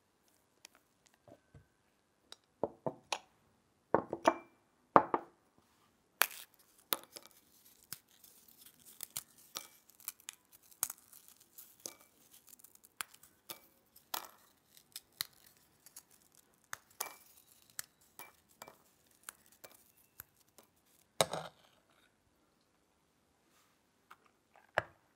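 Lotus speculoos cookies snapped and crumbled by hand into small glass tumblers, with many short crackles, a plastic wrapper crinkling and crumbs clinking on the glass. Near the end there is a louder knock, then a spoon clinks against a glass.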